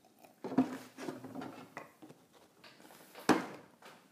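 Knocks and clatter of a plastic vinegar jug and a glass jar being handled on a wooden table as the jug is set down and the lid goes on the jar, with the sharpest knock about three seconds in.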